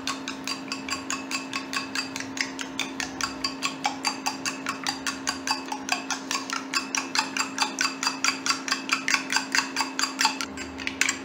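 Metal spoon beating raw eggs in a glass bowl, clicking against the glass in a quick steady rhythm of about five strokes a second, with a brief pause near the end.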